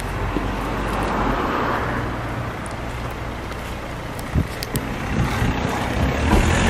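A car engine running with outdoor noise. There are two sharp knocks about four and a half seconds in, and a deeper, louder engine sound builds near the end.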